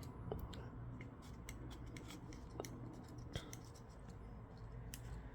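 Faint, irregular small clicks and scrapes of a hand tool working over a tablet's frame, clearing off old adhesive residue.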